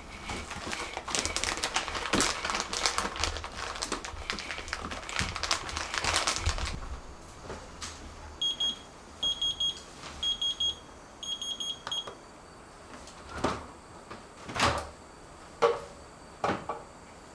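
Kitchen clatter, a dense run of clicks and knocks, followed by four short bursts of rapid electronic beeps at one high pitch from a kitchen appliance's signal, then a few scattered knocks.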